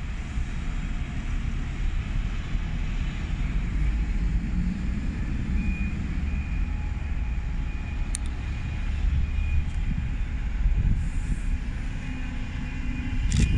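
Diesel buses running around a bus station, a steady low engine rumble as a single-decker bus pulls away and drives across the forecourt. A faint, broken high beeping comes in from about six to nine seconds, with a sharp click just past eight seconds and a louder knock near the end.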